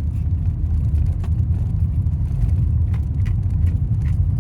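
Steady low road rumble of a vehicle driving slowly, heard from inside the cabin, with a few faint, irregular clicks over it.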